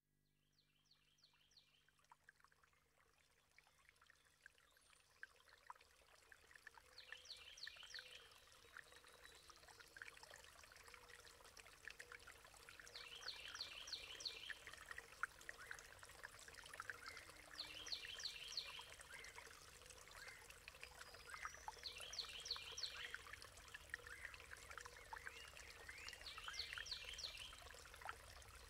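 Faint trickling water that fades in, with a short run of quick high chirps repeating every four to six seconds.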